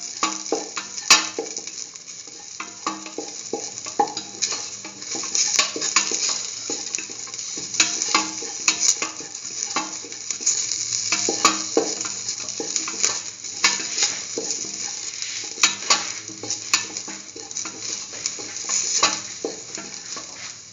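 Sliced onion, shallots and tomato frying in oil in a metal pan, with a steady sizzle, while a spatula stirs them and scrapes and clicks against the pan many times.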